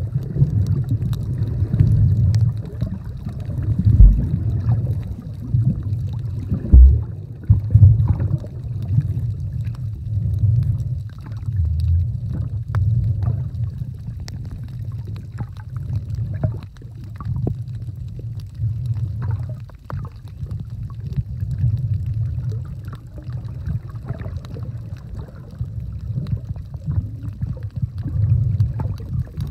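Muffled underwater rumble of water moving around a submerged phone's microphone, surging and easing unevenly, with two sharp thumps about 4 and 7 seconds in.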